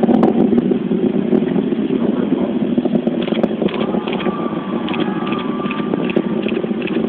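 Distant Atlas V rocket climbing after liftoff: a steady low rumble with a rough crackle running through it. A thin high tone sounds over it for the last few seconds.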